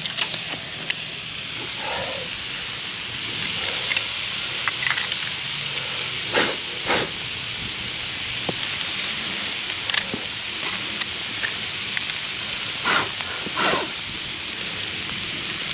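Fire-heated stones searing the fatty side of short beef ribs and other marinated meats: a steady sizzling hiss, broken by a few sharp clicks. The fat is crisping under the hot stones.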